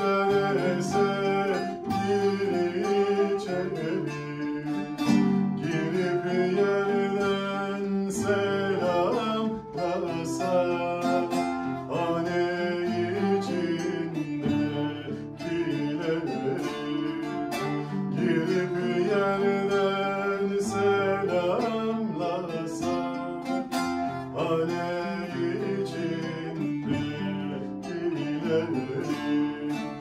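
Turkish folk tune played live on transverse flute, bağlama and acoustic guitar together, the plucked strings keeping up a steady accompaniment under a moving melody.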